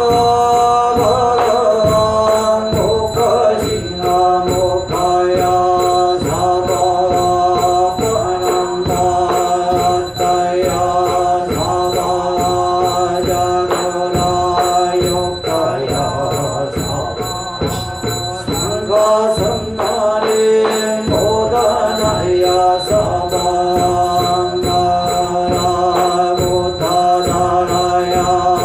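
Korean Buddhist yeombul chanting by a monk and congregation: voices hold long, steady notes that shift every second or so, over a steady, rapid beat of sharp strikes.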